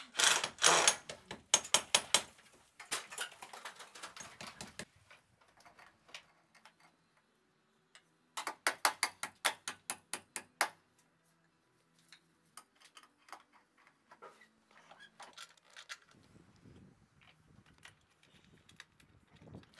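A cordless impact driver rattling in short bursts as it drives screws into aluminium roof bars. Lighter clicks and metal knocks come in between. The loudest rattling is in the first second or two, and a run of sharp, evenly spaced clicks comes about halfway through.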